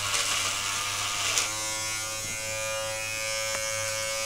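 Electric shaver buzzing while cutting through a moustache. About a second and a half in, the rasp of the cutting drops away and the shaver runs on with a steadier hum.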